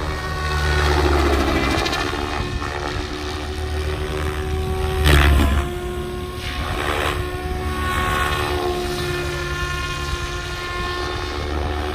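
SAB Goblin 700 electric RC helicopter flying aerobatics. Its rotor blades whoosh over a steady whine from the brushless motor and drivetrain, and the sound swells suddenly and loudly about five seconds in.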